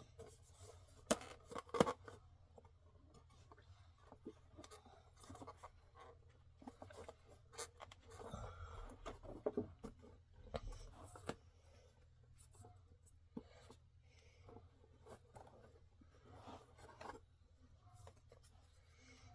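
Objects being handled: scattered light clicks and taps with rustling, a couple of sharper clicks about two seconds in, and a busier stretch of rustling and scraping in the middle.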